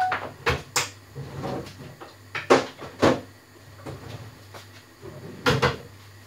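Several sharp knocks and clatters of kitchen handling, about six in all, the loudest two about two and a half and three seconds in, with another pair near the end.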